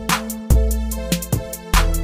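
Background music with a steady beat: deep bass-drum hits and quick, sharp high-pitched ticks over a sustained chord.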